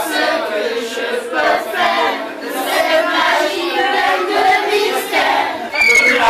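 A group of women singing a song together, many voices in unison like an amateur choir. Near the end, a louder burst of crowd voices.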